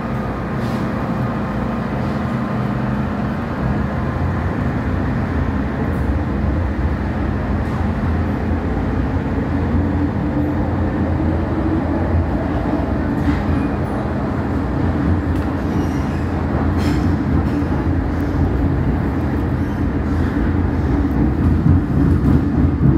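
Inside a Metro-Cammell M-Train electric multiple unit pulling away and running: a continuous rumble of wheels and traction equipment that grows a little louder. Partway through, a hum rises gently in pitch, and there are a few scattered clicks.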